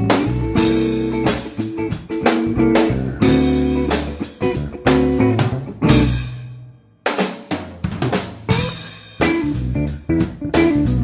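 Background music: a band track with prominent drum kit over bass and guitar notes. About seven seconds in the music drops away almost to nothing, then starts again.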